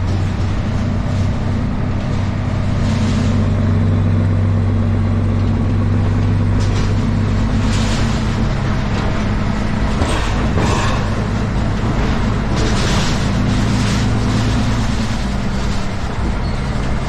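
Road train truck's diesel engine running steadily under way, holding one low, even note over the road noise.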